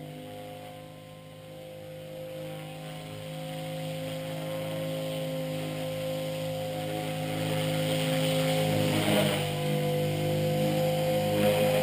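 Blade 450 X electric RC helicopter whining steadily from its motor and rotors as it descends toward the camera, growing steadily louder, with a brief wobble in pitch around nine seconds in.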